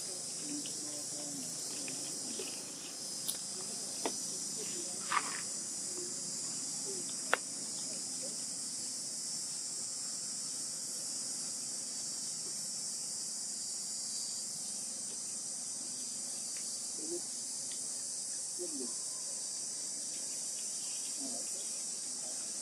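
Steady chorus of insects, a continuous high-pitched hiss-like drone. A few sharp clicks stand out in the first third.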